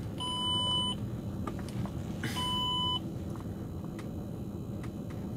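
Two short electronic beeps about two seconds apart, each a steady tone lasting under a second, over the low steady hum of a Range Rover Sport's cabin with the engine running.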